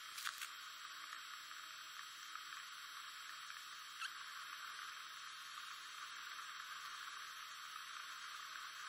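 Faint steady hiss with a few small clicks: two shortly after the start and one about four seconds in.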